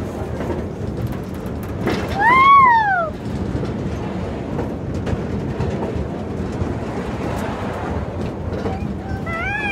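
Spinning amusement ride running with a steady rattling rumble from its cars and track. About two seconds in, a rider gives a loud, high whoop that rises and then falls, and a shorter rising whoop comes near the end.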